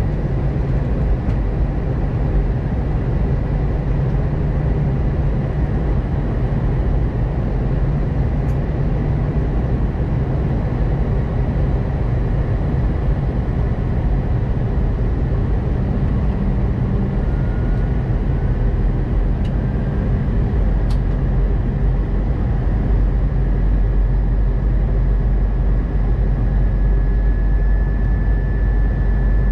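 Cabin noise inside an Airbus A320 descending on approach: a steady low rumble of engines and airflow. In the second half a faint engine whine creeps slowly upward in pitch while the deep rumble grows heavier.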